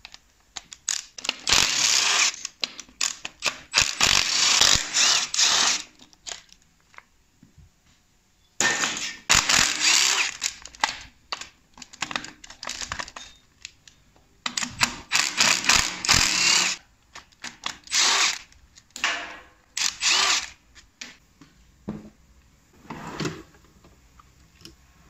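Air impact wrench hammering bolts loose on the front of a BMW M62 V8 engine. It runs in three long bursts of a few seconds each, then in several shorter bursts near the end.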